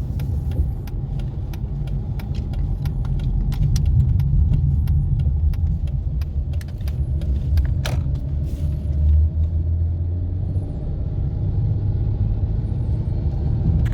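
Cabin noise of a 2007 Dodge Charger being driven: a steady low engine and road rumble, with scattered light clicks throughout.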